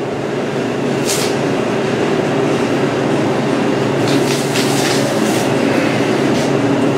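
The walk-in cooler's refrigeration unit runs with a steady hum. Over it the deer hide tears as it is pulled down off the carcass, about a second in and again around four to five seconds.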